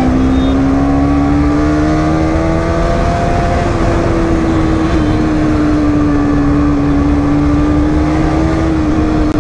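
Bajaj Pulsar 200 NS's single-cylinder engine running while the bike is ridden on the road, its note rising slowly over the first few seconds, holding steady, then dropping a little near the end, with road and wind noise.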